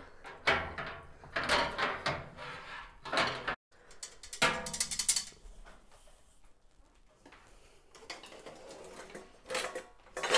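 Copper immersion wort chiller being pulled out of a stainless steel brew kettle: a string of metal clanks and scrapes in the first half, one with a brief ringing tone, then quieter handling.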